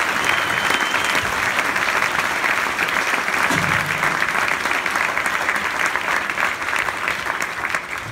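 Theatre audience applauding steadily, the clapping starting to die away near the end.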